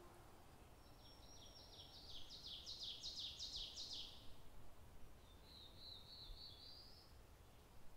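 A songbird singing faintly: a series of about a dozen quick, high notes that grow louder over about three seconds, then a shorter trill a second later.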